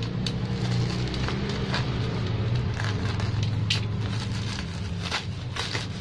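Bubble-wrap packaging crackling and rustling as it is slit with a box cutter and pulled open by hand, in irregular sharp crackles over a steady low hum.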